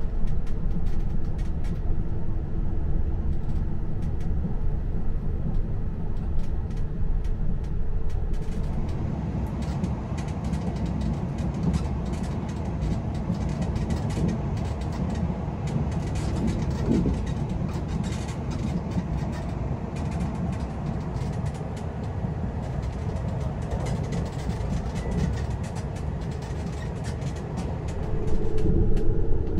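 Steady rumble and rail noise heard inside the cabin of a Kamui limited express electric train running at speed. The noise is a little louder near the end.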